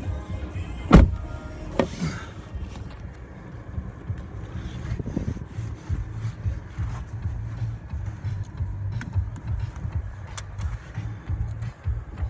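Steady low rumble of a car's road and engine noise heard from inside the cabin while driving. A loud sharp knock about a second in, and a smaller click shortly after.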